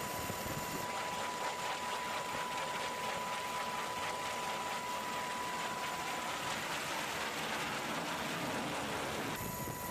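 Steady jet engine noise from F-35 fighters: an even rush with a high steady whine. Its character changes abruptly about a second in and again shortly before the end.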